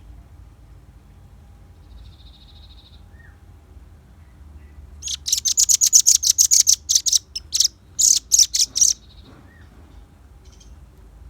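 Velvet-fronted nuthatch calling: a rapid, loud series of sharp, high chips, about five a second, for nearly three seconds, then a short burst of a few more. A faint, brief trill comes a few seconds earlier.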